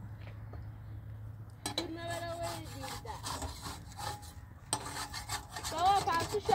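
Wood being worked by hand with repeated scraping strokes, in the manner of a hand saw or rasp, starting about a second and a half in. Short high-pitched calls sound over the strokes near the end.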